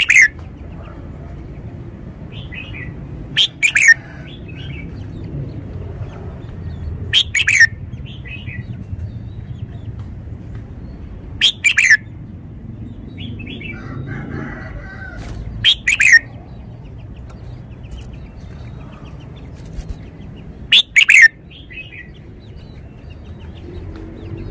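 Red-whiskered bulbul singing. It gives six short, loud whistled phrases about every four seconds, each sliding down in pitch, with softer notes between some of them.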